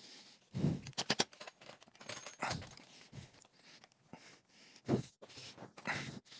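Front fork leg of an E-Ride Pro SS 3.0 electric dirt bike being worked by hand up into a snug triple clamp: irregular scrapes, clicks and knocks of metal handling.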